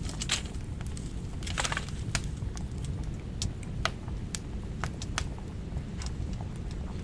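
Wood fire in a small box stove crackling, with irregular sharp pops and snaps over a steady low rumble.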